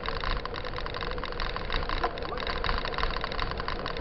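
Mountain bike rolling over a dirt and gravel road: tyres crunching on grit, with a dense, steady rattle and rumble.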